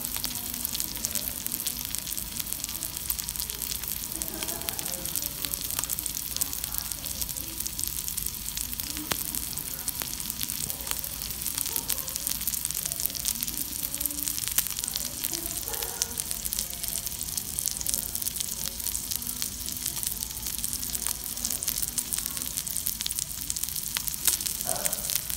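Cubes of Olein 55 wagyu beef searing in butter on a flat metal griddle, the fat sizzling steadily with a dense crackle.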